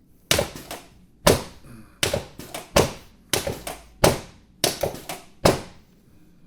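Chiropractic drop table's drop section clunking down under the chiropractor's quick thrusts on the lower thoracic spine. About a dozen sharp clunks, roughly one every half second, with quiet between.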